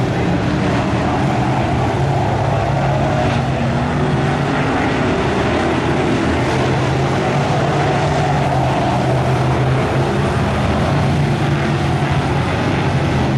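A pack of BriSCA F1 stock cars' V8 engines running hard as the cars race round the oval, a dense and steady engine noise.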